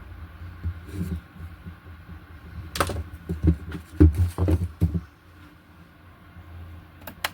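Handling noise: irregular low thumps and a few sharp clicks and knocks, busiest for a couple of seconds in the middle, with two quick clicks near the end.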